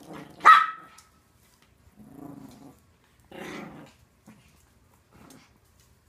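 Small Yorkshire terriers growling in play as they tug at a toy, in four or five short rough bursts, with one loud sharp yap about half a second in.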